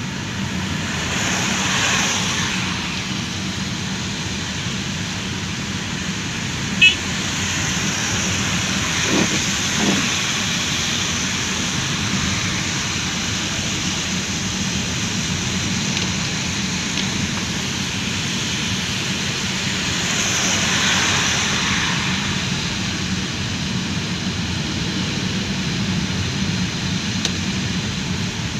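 Steady road noise inside a moving car on a wet, rainy street: tyre and rain hiss over a low engine hum. The noise swells twice, and a single short click sounds about seven seconds in.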